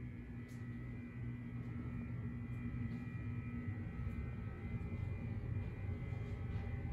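Steady low hum of room noise, with faint soft ticks about once a second from footsteps walking along a carpeted hallway.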